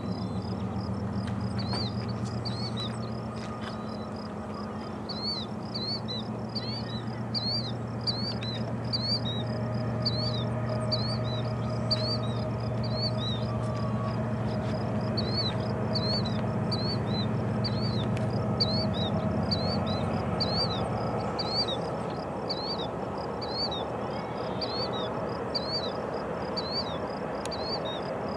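Distant Union Pacific diesel locomotives passing, their engines a steady low drone that fades away about two-thirds of the way through. Over it a bird calls with short high chirps, repeated about one to two times a second.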